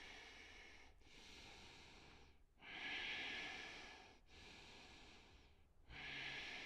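A man breathing slowly and audibly while holding a standing yoga forward fold: about five long, breathy breaths in and out, with the louder ones about three seconds in and near the end.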